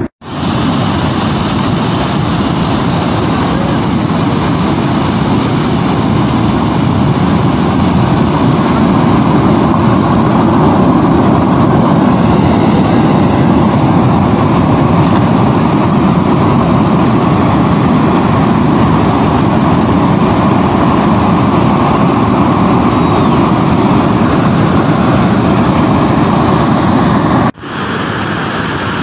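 A muddy mountain river in flood, its water rushing loud and steady. Near the end the sound drops out for a moment and comes back a little quieter and hissier.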